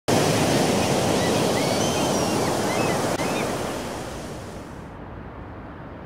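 Sea surf washing steadily, with a few short gull cries over it, fading away over the last few seconds.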